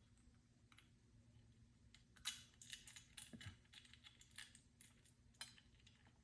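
Faint, irregular small clicks and scrapes of a screwdriver working a screw out of a metal door handle. The clicks begin about two seconds in.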